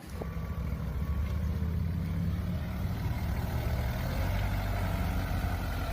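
A motor engine idling: a low, steady rumble that starts abruptly and holds even throughout.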